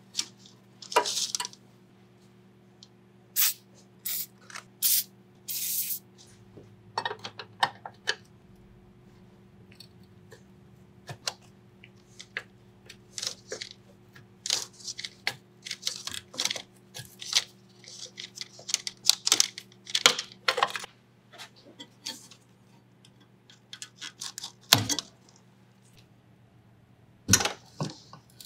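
Hand work on a brake master cylinder: a shop rag rubbing over it in short swipes, then a wrench clinking and scraping on the steel brake-line flare nuts in short irregular bursts, over a steady low hum.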